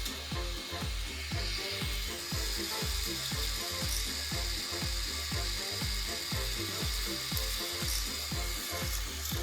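Chain lift of a K'NEX roller coaster clattering steadily, its motor whining faintly, over background music with a steady low beat.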